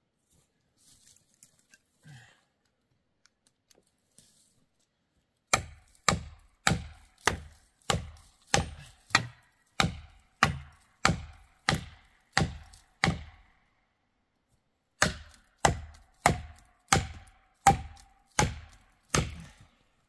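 Steady, evenly spaced blows driving felling wedges into the back cut of a dead ponderosa pine, each with a short ring. There are about thirteen blows at roughly one and a half a second, a pause of about two seconds, then about eight more.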